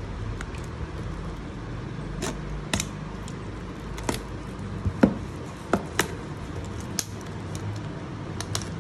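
Hands handling and opening a parcel: a series of sharp, separate clicks and taps, about eight in all, the loudest about halfway through, over a steady low rumble.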